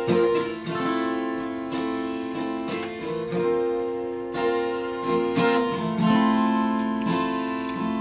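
Acoustic guitar playing chords, strummed about every half second to a second, each chord left to ring into the next.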